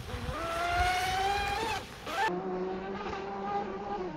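RC speedboat's motor whining at speed across the water. The pitch rises for a couple of seconds, then dips. It cuts abruptly to a lower, steadier whine that drops away near the end.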